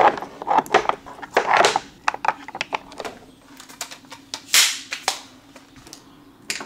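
Plastic makeup tubes, compacts and bottles clicking and clattering as they are picked up and sorted in a vanity drawer and on its shelf, with a few soft swishes, the loudest about four and a half seconds in.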